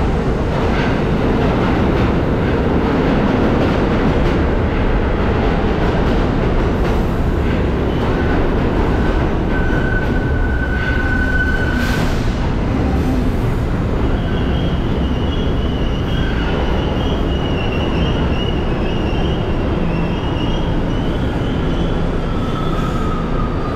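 New York City subway D train rolling into an underground station: a loud, steady rumble of steel wheels on rail. A high squeal sounds about ten seconds in, more squealing runs through much of the second half, and a falling squeal comes near the end.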